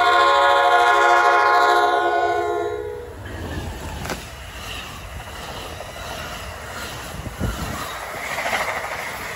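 An NJ Transit electric locomotive's horn holds one loud, many-toned blast that stops about three seconds in. Then its bi-level passenger coaches rush past close by, with wheel and rail rumble and a few sharp clicks.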